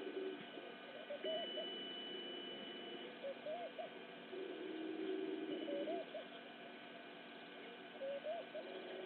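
Short hooting bird calls, repeated every second or two, over a steady background drone that comes and goes.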